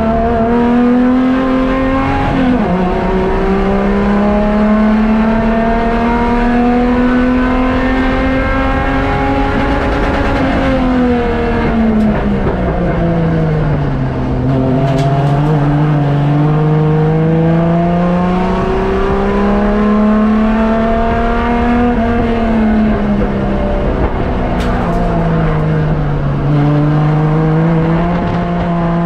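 Racing engine running hard, its pitch climbing slowly over several seconds and then falling back, three times.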